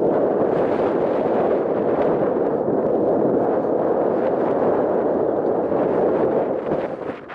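Strong wind buffeting the microphone: a loud, steady rush of noise that eases briefly near the end.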